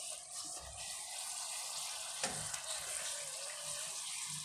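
Golgappa puri deep-frying in hot ghee in a kadai: a steady, quiet sizzle as the puffed puri cooks, with a light tick of the steel slotted spoon about two seconds in.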